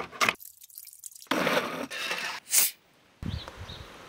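Vegetable prep sounds: a knife knocks a few times through green stems onto a wooden cutting board at the start. After a short gap come crunching and rustling of vegetables being handled, with one sharp crunch, before a brief pause and duller handling as shredded vegetables are packed into a glass jar.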